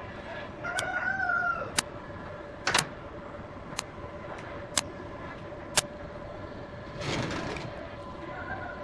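Sharp clicks about once a second over a steady faint hum, with a short pitched bird call about a second in and again near the end, and a brief rush of noise about seven seconds in.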